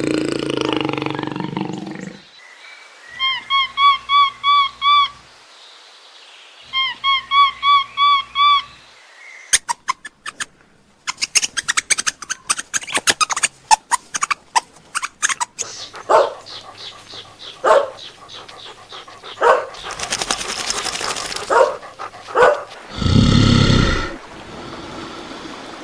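A string of different animal calls: a low, loud call at the start, two runs of about eight quick rising chirps, then a long stretch of rapid clicks and scattered calls, and two loud low calls near the end.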